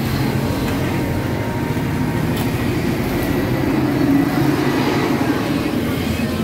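Road traffic: vehicle engines running close by in a steady low rumble, swelling slightly about four seconds in.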